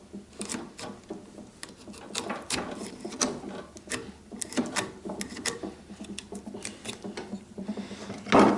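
Light irregular wooden clicks and scrapes of a joint's parts and hand tools being handled on a workbench, several a second, with a louder knock near the end.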